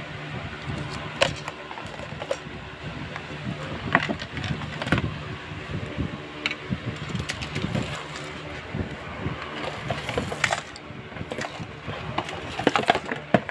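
Handling noise from unwrapped gifts and the phone: irregular clicks, taps and rustles as a spiral notebook and other small items are moved about and set down, over a steady low hum. The taps come in clusters, thickest about four to five seconds in and again near the end.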